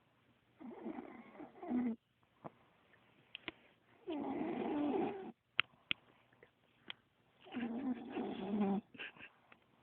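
Snoring: three long snores about three seconds apart, with a few short clicks in between.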